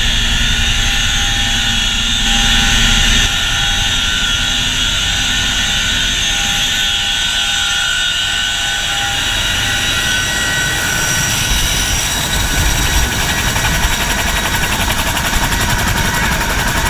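Boeing CH-47 Chinook tandem-rotor helicopter running loud and steady: several high, steady whines from its turbines and gearboxes over a dense low rumble. About ten seconds in, a fast rotor beat grows in under the whine.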